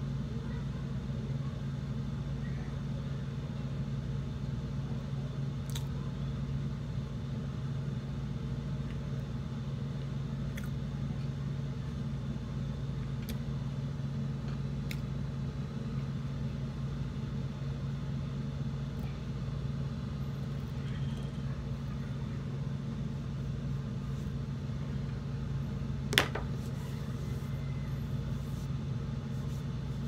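Steady low mechanical hum, even in level, with a few faint clicks and one sharp click about 26 seconds in.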